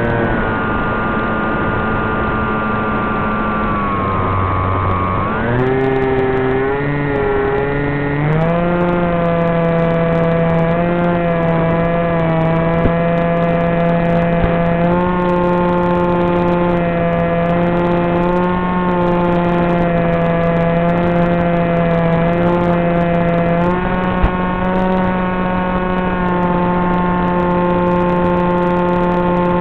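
Brushless motor and propeller of a Wing Wing Z84 flying wing (Turnigy 2826 2200kv motor) running in flight, a steady whine. Its pitch sags about four seconds in as the throttle eases off, climbs back a few seconds later, then holds steady and steps up slightly near the end.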